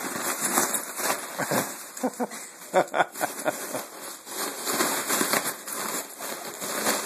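Crinkling and crackling of a foil balloon as a small dog bites and paws at it, a quick run of irregular crackles with a sharper crack about three seconds in.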